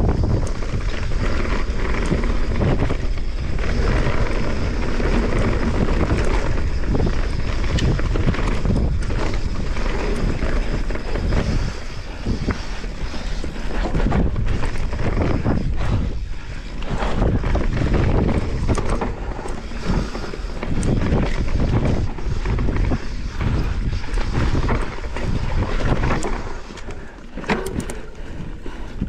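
Wind buffeting the microphone and tyres rolling over dirt as a Santa Cruz Megatower CC full-suspension mountain bike runs downhill at speed, with frequent rattles and knocks from the bike over bumps. It eases off briefly a few times.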